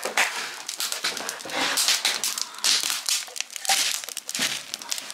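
Wood fire of dry lumber cutoffs crackling in the open firebox of a Clasica Lacunza wood cook stove: a dense run of irregular crackles. Lots of crackling is the sign that the fire has caught and is going well.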